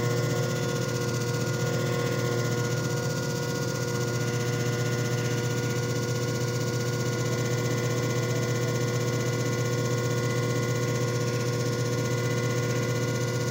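JFJ Easy Pro disc repair machine running a cycle, its motor humming steadily with a constant pitch.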